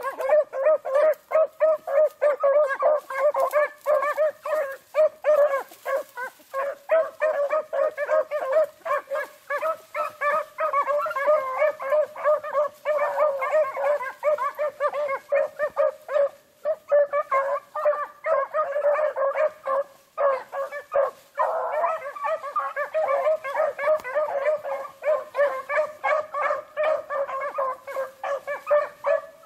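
A pack of beagles baying on a rabbit's track: a rapid, nearly continuous run of overlapping barks and bawls, with a couple of brief breaks a little past the middle.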